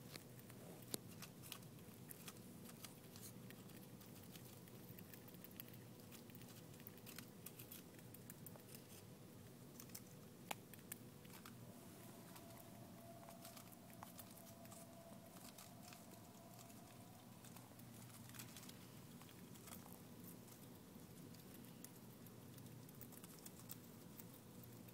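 Faint, crisp clicks and crunches of a pet squirrel biting and tearing leaves off a head of butterhead lettuce, over a faint steady hum.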